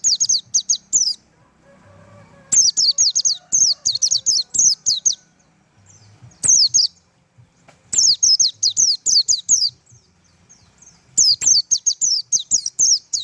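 Pleci (white-eye) singing its rapid-fire 'tembakan' song: fast strings of high, sharply falling chirps in bursts of one to three seconds, five bursts with short pauses between them.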